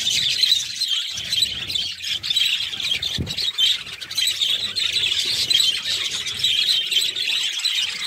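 A flock of budgerigars chattering and chirping all at once, a dense and unbroken warble of many overlapping calls.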